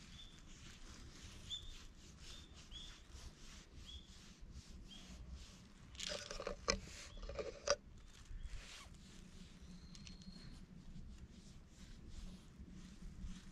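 Soft rustling and light clicks of a hand stroking a cat's fur among dry leaves, louder for a moment about six to eight seconds in. A bird chirps repeatedly in the background over the first few seconds.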